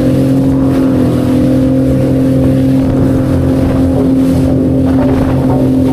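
Sea-Doo FishPro Scout jet ski running at a steady cruising speed through choppy waves. Its Rotax three-cylinder engine holds an even pitch under the rush of wind and water.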